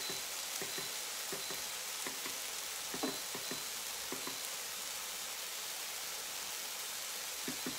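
Browned ground-beef Salisbury steak patties sizzling steadily in a slow cooker's searing pot, with scattered small pops and ticks.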